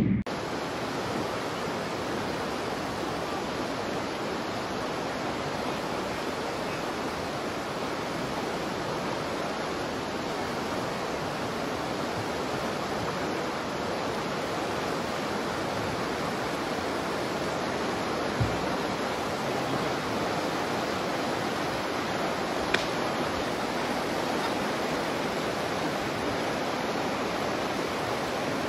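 River rapids rushing: a steady wash of white water. A brief low thump comes about eighteen seconds in, and a short sharp click a few seconds later.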